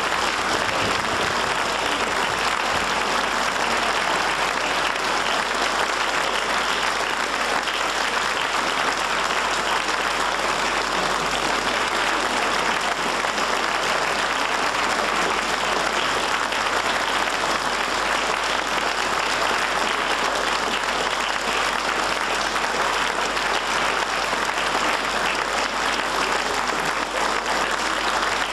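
Audience applauding steadily, a dense even clapping that neither builds nor fades.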